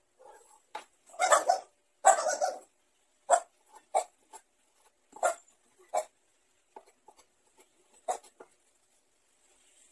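Cleaver chopping raw chicken breast on a wooden cutting board: single sharp chops at uneven intervals. Two louder, longer noises come about a second and two seconds in.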